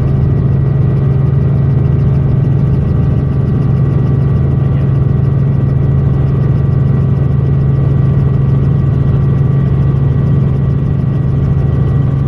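Helicopter's engine and rotor running steadily: a loud, even drone with a strong low hum that holds the same pitch throughout.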